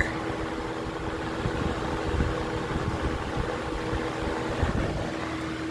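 A Lakewood 200i 20-inch box fan runs on high with a Toastmaster fan blade swapped in for its original: a steady motor hum with a rush of moving air. Air buffets the microphone as a low rumble that eases about five seconds in. The motor is drawing no more than its rated current with this blade.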